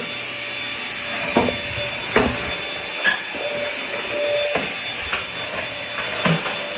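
Corded vacuum cleaner running steadily with a constant high whine, broken by about six short knocks or clicks.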